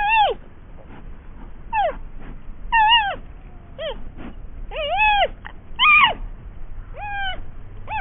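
Giant pandas calling: a run of about nine short calls at irregular gaps of about a second, each rising and then falling in pitch.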